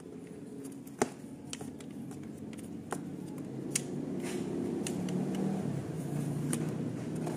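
Scattered small clicks and taps of a screwdriver and fingers working the plastic push-pin fasteners on a scooter's body panels, the sharpest about a second in, over a low steady hum that grows louder after about three seconds.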